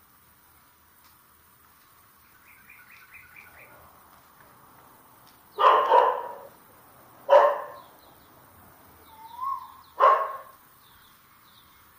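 A dog barking: a quick pair of barks about halfway through, then two single barks a few seconds apart, with a softer rising whine just before the last. Small birds chirp faintly around the barks.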